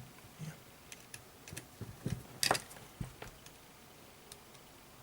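Scattered small clicks and taps of multimeter test probes being handled and set against a power supply circuit board, the loudest about halfway through.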